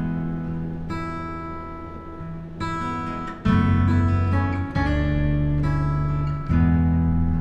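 Background music: acoustic guitar strumming chords, with fresh strums and chord changes every second or two.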